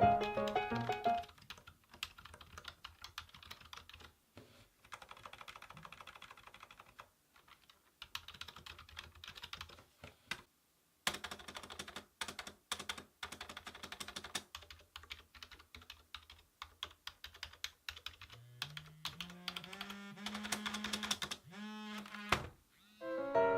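Typing on a Logitech K480 Bluetooth keyboard: keys clicking in quick runs with short pauses. Near the end a low tone rises in pitch and then holds for a few seconds.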